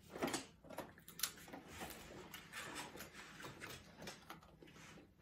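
Faint, scattered clicks and scrapes of people eating: a plastic fork against a paper plate and packaging being handled.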